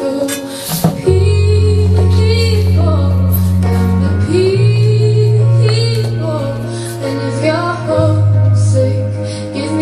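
A song with a woman singing a slow melody over long held bass notes that come in about a second in and change twice.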